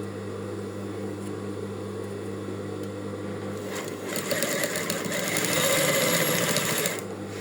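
Sewing machine stitching a zipper seam: after a few seconds of low steady hum it runs for about three seconds from about halfway in, then stops near the end.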